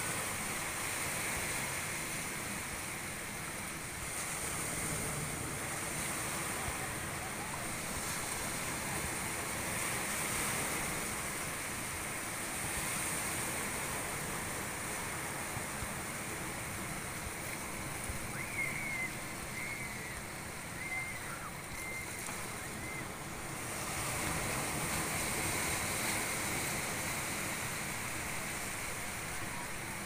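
Sea waves washing in over a rocky shoreline: a steady rush of surf that swells and eases every few seconds. A few faint high chirps come through about two-thirds of the way in.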